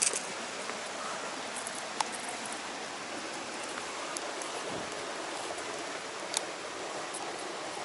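Steady rain falling on the water surface and surroundings, an even hiss, with a few sharp ticks.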